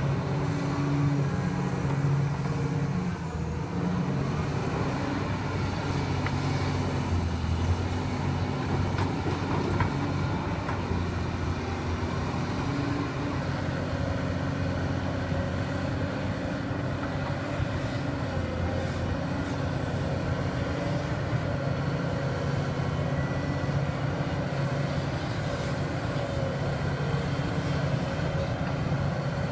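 Excavator's diesel engine running steadily while it digs, its pitch shifting slightly with the load now and then.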